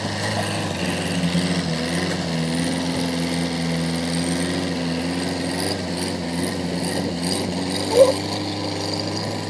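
Kubota DC105X combine harvester's diesel engine running steadily through its modified exhaust, its pitch wavering slightly. A brief higher-pitched sound stands out about eight seconds in.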